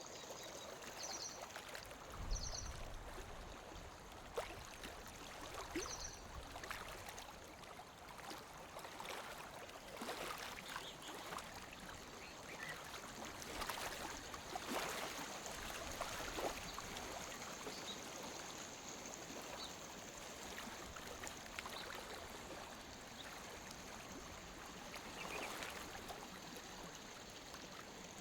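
Lake water lapping against the shore in small, irregular splashes over a steady wash. There is a low bump about two seconds in, and a few short high chirps in the first few seconds.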